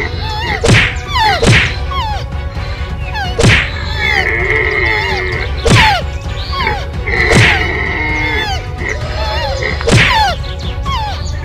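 Cartoon fight sound effects: a string of punch-like whacks and thuds, about seven in all and unevenly spaced, each with a quick falling swoosh.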